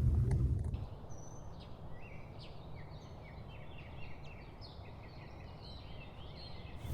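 Small birds chirping: many short, quick calls with rising and falling notes over a faint background hiss. A low rumble cuts off just under a second in.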